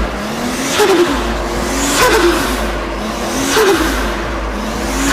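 Turbocharged car engine revved and let off about four times. Each lift-off brings a quickly falling note and a burst of hiss as the turbo's boost is released.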